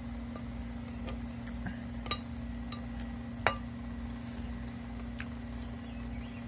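Metal spoon clinking against a plate of food, a few short sharp clinks, the loudest about two seconds and three and a half seconds in, over a steady low hum.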